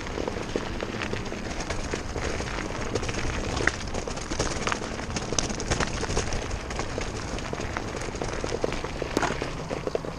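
Mountain bike riding fast down a rocky dirt trail: tyres crunching over loose stones, with the bike rattling and clattering in many small, irregular knocks over a continuous noisy rush.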